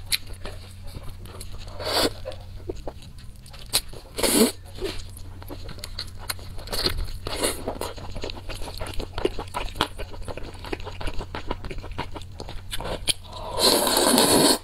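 Close-miked eating sounds: bites and wet chewing with a few sharper crunchy moments, then a long loud slurp of noodles near the end.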